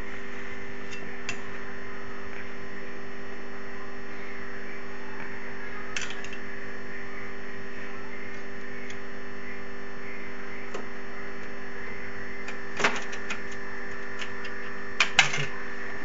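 Steady electrical hum, with a few sharp metallic clicks and taps from a screwdriver and screw on the PC case's slot bracket as a graphics card is screwed down. The loudest clicks are about 13 s in and in a quick cluster near the end.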